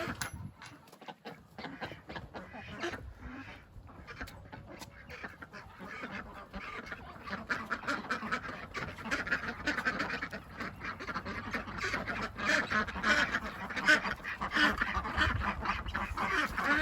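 A group of farm ducks quacking, many short calls overlapping, noisy and growing louder toward the end.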